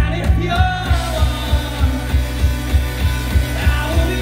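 Live rock band playing: electric guitars and bass over a drum kit, with the kick drum keeping a steady beat of about three strokes a second.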